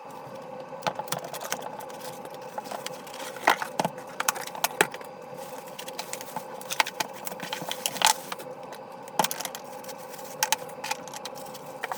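Small hard objects being handled, with irregular clicks, taps and light rattles over a steady hum.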